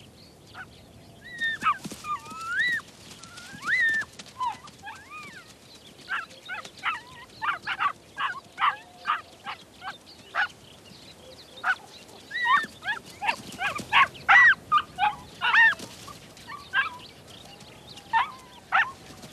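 Ethiopian wolves whining, squealing and yelping in many short, high-pitched calls, some sliding up and down in pitch, with a rapid run of clipped yelps through the middle. These are the excited greeting and begging calls of pups mobbing returning adults for food.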